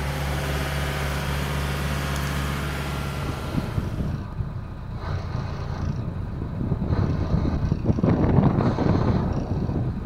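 A boat engine running steadily at a low, even speed. About four seconds in it gives way abruptly to gusty wind buffeting the microphone, rising and falling in gusts.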